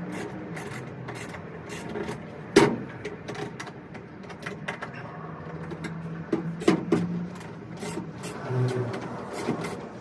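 Clicks, taps and light scraping of a screwdriver working on a plastic tail-light housing and its circuit board, with a sharp knock about two and a half seconds in and two more close together near seven seconds.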